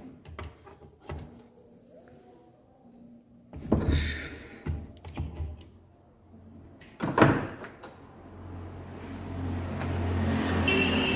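Metal parts of an opened motorcycle engine crankcase being handled: scattered light clicks, a clatter about four seconds in and a sharp knock about seven seconds in. From about eight seconds a low steady hum builds and holds.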